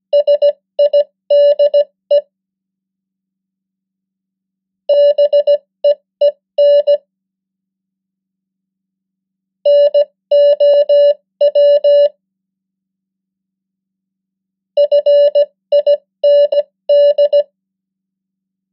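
Morse code practice tone at 15 words per minute: one steady beep keyed into short dits and long dahs, sending four separate words, each about two seconds long, with a pause of two to three seconds between words.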